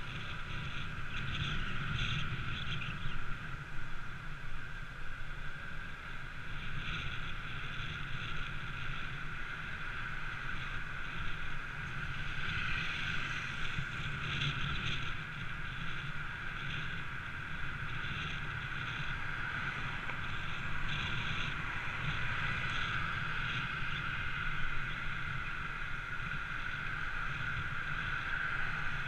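Steady rush of wind and road noise from a motorbike riding through city traffic, with a low rumble under it.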